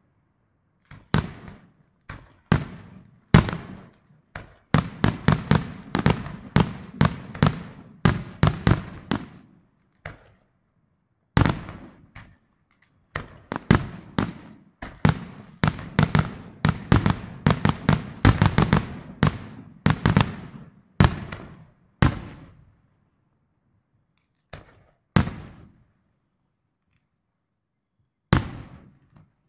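Aerial firework shells bursting in a display: a few single bangs, then two long stretches of rapid, crowded bangs, thinning to scattered single bangs near the end.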